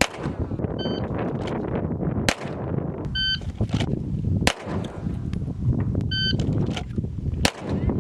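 Pistol shots at irregular intervals, with four loud ones standing out among fainter ones. A short electronic beep repeats about every two and a half seconds, over a steady low rumble.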